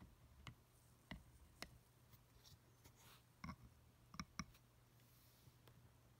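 Faint, irregular small clicks, about seven in all, from a knife blade probing and turning the number wheels of a three-dial luggage combination lock; the loudest come as a quick pair a little after four seconds in.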